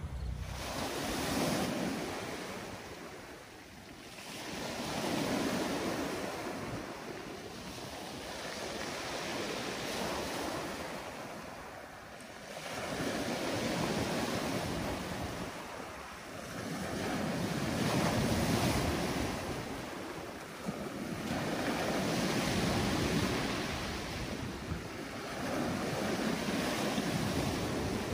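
Small sea waves breaking on a pebble beach and washing up the shore, swelling and fading about every four seconds.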